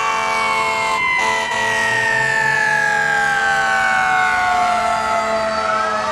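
Fire truck siren wailing: one long tone falling slowly in pitch over several seconds, with the next rise beginning near the end, over a steady drone.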